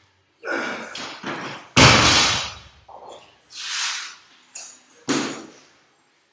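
Loaded barbell with bumper plates dropped onto a rubber gym floor, landing with one heavy thud about two seconds in that dies away over about a second. Short, hard breaths from the lifter come before and after it.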